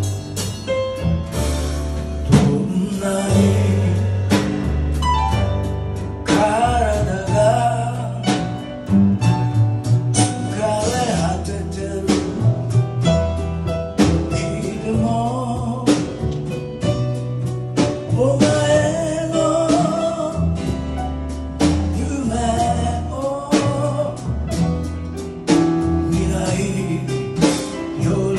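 Live band music with acoustic guitar and upright double bass walking a steady low line, over a steady beat, with a wavering melody line on top; a blues-style number.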